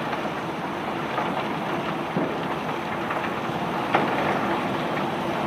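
Rock-carrying conveyor belt running: a steady rushing rattle with a faint steady hum and a few sharp knocks, the clearest about four seconds in.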